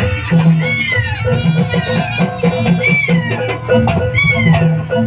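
Live traditional Javanese music for a dance performance: drums and percussion in a steady pulsing rhythm under a held tone, with a high sliding note that rises and falls, repeated about every second and a half.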